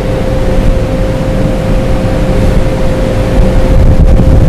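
Loud steady low rumble with one constant mid-pitched hum running through it, machine or fan noise with no break.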